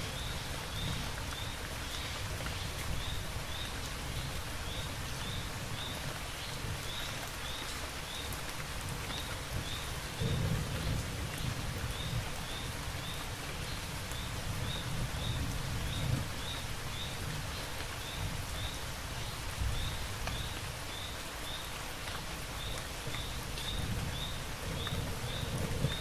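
Steady heavy rain falling, with low thunder rumbles that swell about ten seconds in and again near the end. A faint short high chirp repeats every half second or so, with pauses.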